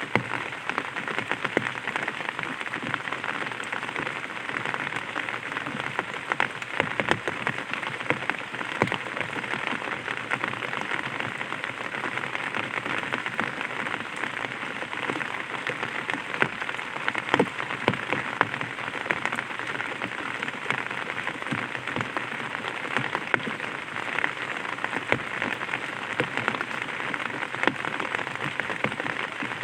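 Light rain falling on an umbrella: a steady hiss of rain with many separate drops tapping on the canopy at irregular moments.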